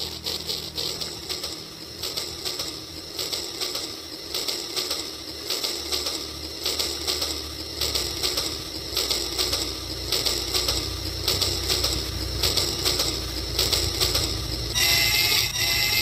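Rail King battery-powered toy train running along its plastic track, a fast, even clicking rattle of wheels and gears over a low motor hum. Near the end a wavering, higher-pitched tone joins in.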